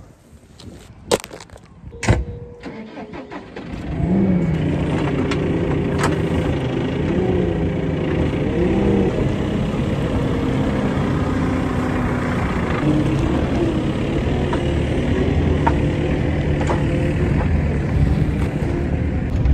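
A couple of sharp knocks, then about four seconds in a JCB telehandler's diesel engine comes in and runs under load, its pitch rising and falling as the hydraulic bale grab and boom lift a bale.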